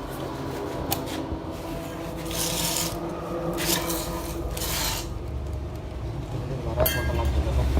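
Two short bursts of hissing gas with rubbing and scraping of hoses and fittings, as a refrigerator's sealed system is readied for vacuuming after a leak-free pressure test. A low machine hum runs underneath and grows louder near the end, with a few clicks just before.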